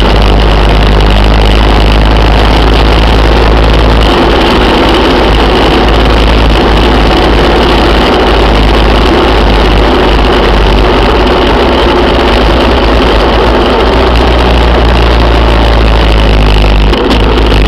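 A vehicle's engine running steadily at cruising speed, with loud, constant wind and road noise.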